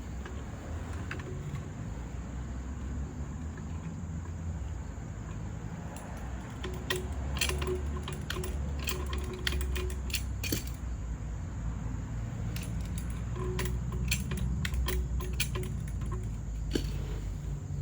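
Light metallic clinks and clicks, scattered and in clusters, as parts of a 3-ton Harbor Freight floor jack are worked on by hand, over a low rumble from the phone being handled.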